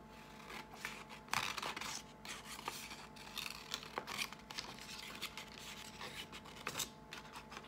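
Scissors cutting through a sheet of construction paper in a run of short, irregular snips.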